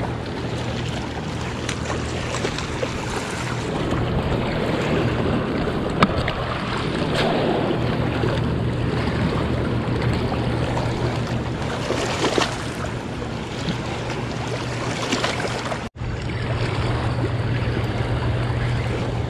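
Choppy tailwater below the dam washing and lapping against the rocky bank: a steady rush of water with a low steady hum underneath. The sound cuts out for an instant about sixteen seconds in.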